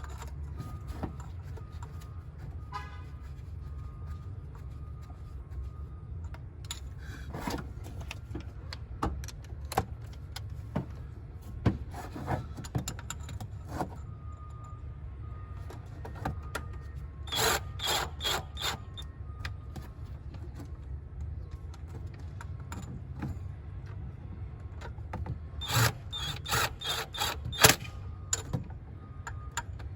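Hand ratchet clicking in short runs of quick strokes as the throttle body's mounting screws are tightened, with scattered clinks of tools and parts, over a steady low hum.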